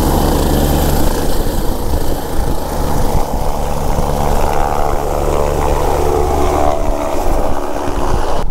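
Twin-turbine MBB Bo 105 helicopter lifting off and climbing away overhead, its main rotor and turbines running loud and steady at take-off power. A higher whine joins in over the middle few seconds.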